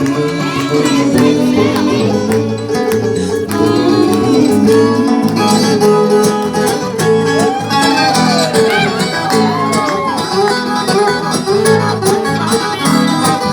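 Instrumental break of a Portuguese-language country song, with plucked guitars keeping a steady beat under a melody that slides between notes.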